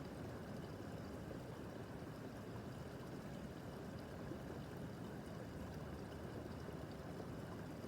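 Small brook babbling: a steady, even rush of running water, with no single splashes standing out.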